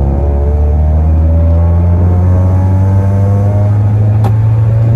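The 1993 Honda Accord's F22 four-cylinder engine and aftermarket exhaust running under way, heard from inside the cabin, its note steady with slight rises in pitch. A single sharp click about four seconds in.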